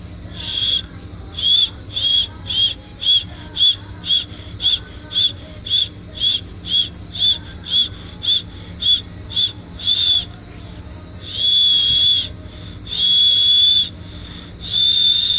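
A high-pitched squeak repeated about twice a second, some eighteen times, then drawn out into three longer held squeaks of about a second each near the end.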